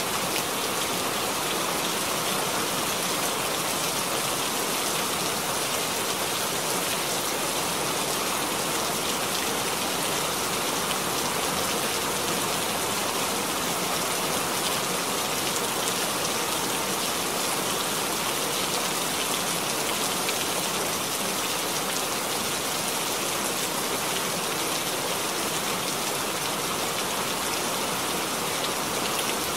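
Steady rain, a dense even hiss of falling drops that holds at one level throughout, with no thunder.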